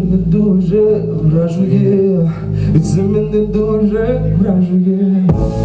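Male vocalist singing live into a handheld microphone over an electronic backing track with a steady low bass line. About five seconds in, the music changes suddenly to a fuller sound.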